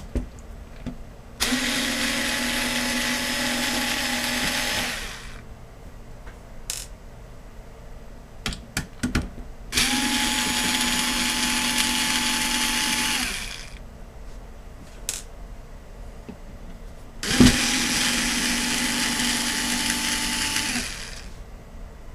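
Electric screwdriver running in three bursts of about three to four seconds each, at a steady pitch, backing out deep screws from a power supply case. Small clicks and taps come between the bursts.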